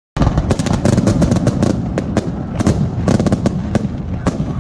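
Aerial fireworks shells bursting in a rapid barrage: several loud bangs a second over continuous booming and crackle.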